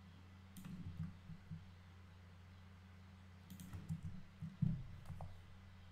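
Faint computer keyboard and mouse clicks in two short clusters, one about half a second in and one past the middle, over a steady low electrical hum.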